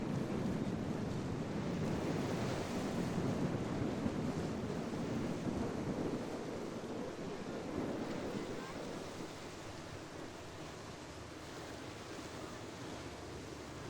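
Wind buffeting the microphone over waves washing and breaking at an ocean inlet. The noise is louder for about the first eight seconds, then eases.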